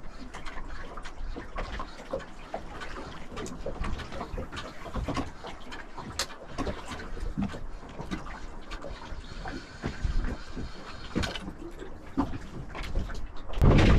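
Irregular small knocks and clatter aboard a small fishing boat over a low steady rumble, with water noise, as gear is moved about.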